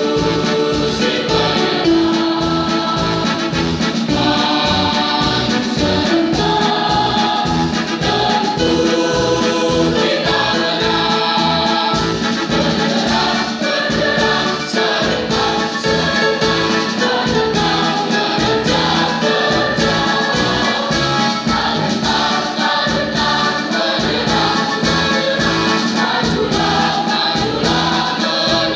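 Large school choir singing an Indonesian patriotic song, many voices holding long notes together.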